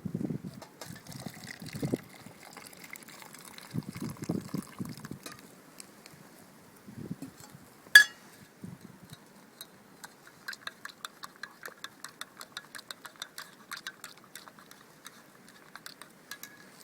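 Water in a metal billy can just brought to the boil, making small quick liquid pops and gulps, about three a second in the second half. A single sharp metal click about eight seconds in, with some low handling bumps earlier.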